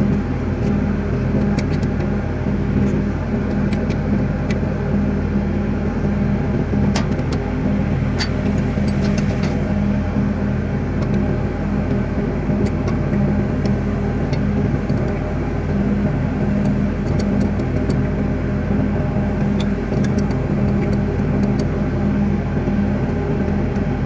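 An engine running at a steady speed, a constant low drone, with a few light metallic clicks of a spanner on a belt tensioner pulley scattered through it.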